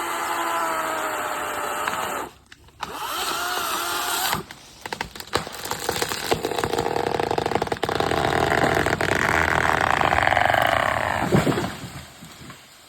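Chainsaw cutting into the trunk of a rotten poplar during a felling cut. The engine drops off briefly about two seconds in and again about four seconds in, runs hard under load through the middle, then winds down with a falling pitch near the end.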